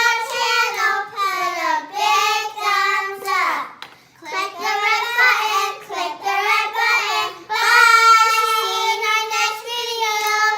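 A child singing a tune, with a short pause a little before the middle and a long held note later on.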